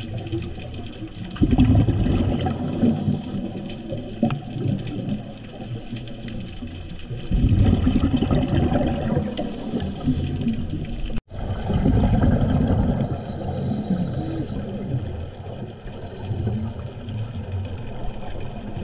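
Scuba regulator exhaust bubbles heard underwater: three loud bubbling rushes, about five seconds apart, as the diver breathes out, with quieter water noise between.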